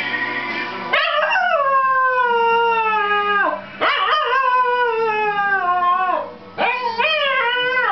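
Young cocker spaniel howling along to recorded music: three long howls, the first sliding slowly down in pitch, the last wavering up and down.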